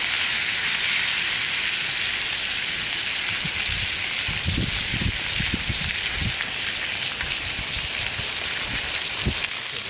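Steady sizzle of food frying, with a few soft low knocks around the middle and just before the end.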